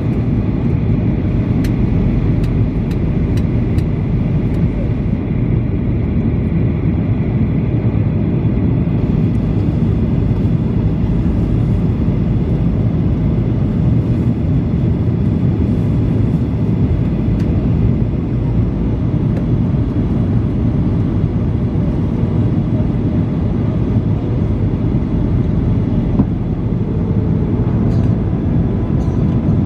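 Steady cabin noise of a Boeing 737-800 on approach with flaps extended: the low rumble of its CFM56-7B turbofan engines and the rushing airflow, heard inside the cabin at a window seat.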